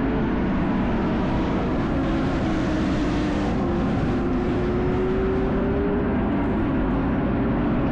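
GT3 race car engines running at speed on track, several engine notes heard together. One note rises slowly in pitch midway as a car accelerates.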